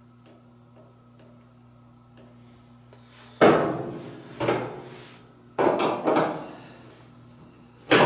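Faint ticking as a screwdriver picks at the dryer's rear drum bearing over a low steady hum. From about three and a half seconds in come five sharp knocks on the dryer's sheet-metal cabinet, each ringing away within a second, as tools and a grease can are handled and set down.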